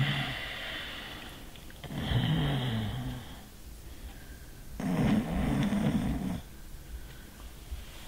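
A person snoring heavily in sleep: long snores about every three seconds, one about two seconds in and another about five seconds in, each lasting over a second, with quiet gaps between.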